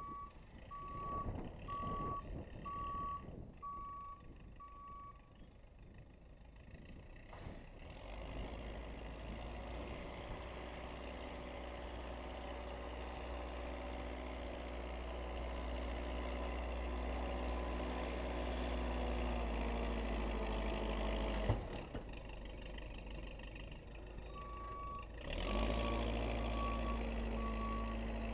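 Case 580C backhoe loader backing up with its backup alarm beeping steadily. Then its engine works harder as it pushes snow, the pitch climbing slowly and then falling away about 21 seconds in. Near the end the engine revs up again and the backup alarm resumes as it reverses.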